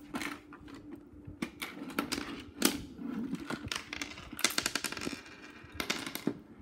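Plastic LEGO pieces of a homemade coin-operated LEGO machine clicking and knocking as they are handled, with two quick runs of rapid clicking in the second half.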